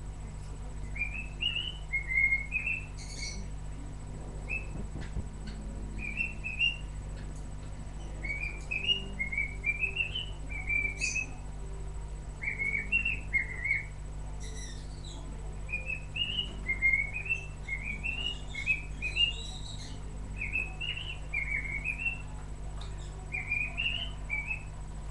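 A parrot chirping: short rising chirps in quick runs of three or four, recurring every second or two, over a steady low hum.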